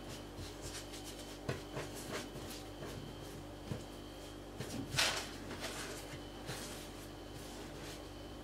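Faint handling sounds of fresh tagliatelle strips being gathered and rolled by hand on a work surface: soft rustles and light taps, the loudest a brief brushing sound about five seconds in, over a steady faint hum.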